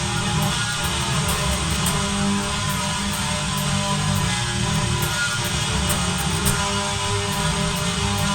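Distorted electric guitar playing through Invader-style humbucker pickups on a Jackson Kelly KE3, continuous and dense.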